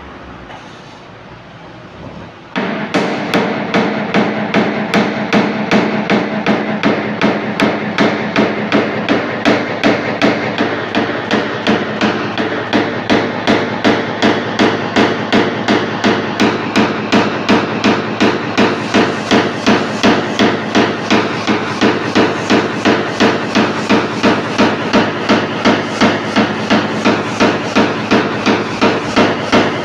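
Paintless dent repair tapping: a small hammer striking a tap-down punch held on a car's sheet-metal panel. Even, light taps come about three a second, starting a couple of seconds in. They close up the paint's orange-peel texture where it is slightly opened after the dent was pushed out.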